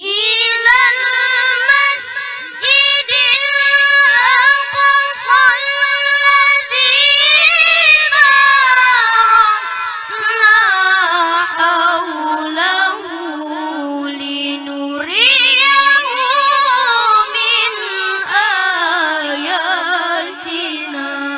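A boy's voice reciting the Qur'an in the melodic tilawah style through a microphone, with long ornamented held notes. The melody sinks slowly to a low sustained note, then leaps back up to a higher pitch about fifteen seconds in.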